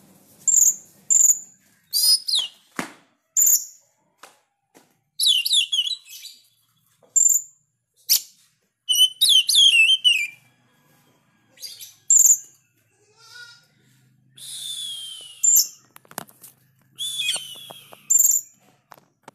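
Male oriental magpie-robin (kacer) singing hard: sharp, high whistled notes and fast, sweeping warbled phrases in separate bursts with short pauses between, and a few brief clicks.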